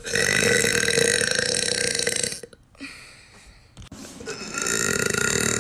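A girl's two long, drawn-out burps, each held at a steady pitch. The first lasts about two and a half seconds, and the second begins about four seconds in.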